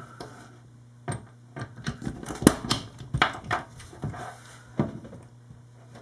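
Punch-down tool snapping as it seats twisted-pair wires into the slots of a CAT5e keystone jack. It makes a string of sharp, irregularly spaced clicks, the loudest about two and a half seconds in.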